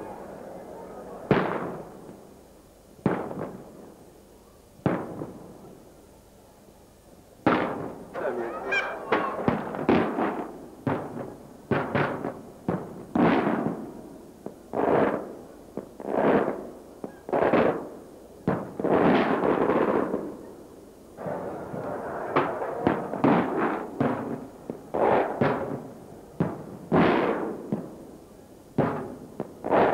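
Aerial firework shells bursting with sharp bangs, each fading out over about a second. The first three come about two seconds apart. From about seven seconds in they follow in a rapid, often overlapping run.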